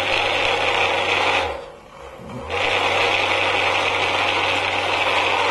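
Small electric motor of a home-built model street sweeper switched on and running with a steady whir; it cuts out about a second and a half in and starts again about a second later.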